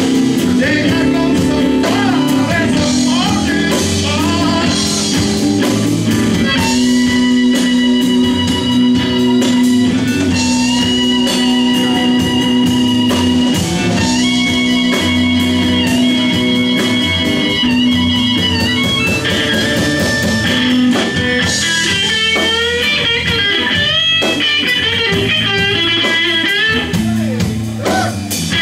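Live blues band playing: electric guitar, bass, drums and an amplified harmonica, with long held notes through the middle.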